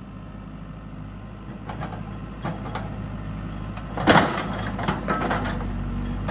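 Excavator engine running and growing louder as it is given throttle, then a loud impact about four seconds in as the bucket smashes down on a lawn mower, followed by a few smaller knocks.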